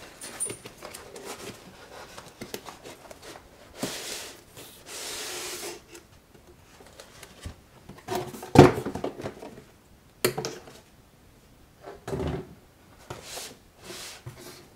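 Cardboard packaging and foam inserts being handled by hand: a long rasping slide about four seconds in, scattered rustles and soft knocks, and a sharp thump a little past halfway, the loudest sound.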